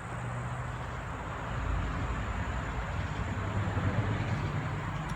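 Road traffic: a steady rushing of tyres with a low engine hum that swells a little about two seconds in.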